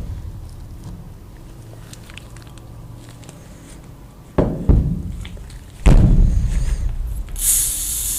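Close-miked mukbang eating sounds: after a few quiet seconds, a few sudden loud bites and chewing, then a short crisp crackle near the end.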